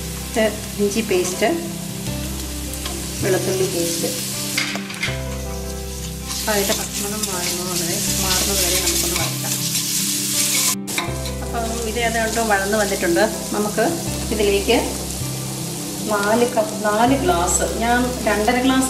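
Sliced onions and green chillies sizzling in hot oil in a stainless steel pressure cooker, stirred with a metal spatula that scrapes against the pan, with a brief break about eleven seconds in.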